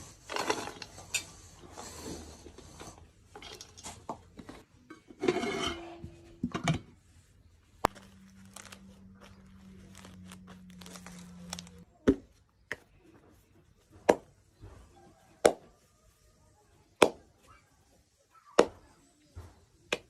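Handling sounds with rustling and clatter, a louder scraping burst about five seconds in, then a series of sharp knocks or slaps roughly every one and a half seconds.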